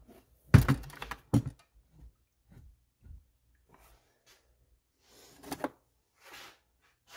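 Knocks and clunks of a Husqvarna chainsaw being handled on a workbench. Two loud thunks come about half a second and a second and a half in, followed by lighter knocks, clicks and rustling.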